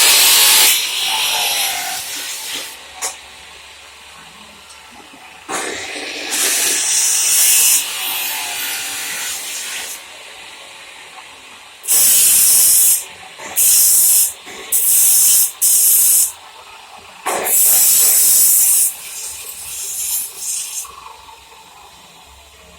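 Electric arc welding on a truck bumper being fabricated: a series of loud hissing arc bursts, each starting and stopping abruptly. The bursts last from about half a second to two seconds, with several in quick succession in the second half.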